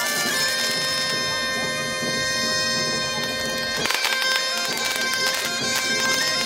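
Bagpipes playing long held notes over their continuous drones, with the melody changing note only a few times.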